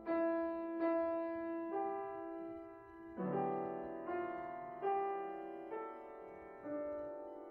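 Slow piano music: single notes struck roughly once a second, each ringing and fading, with a fuller, lower chord joining about three seconds in.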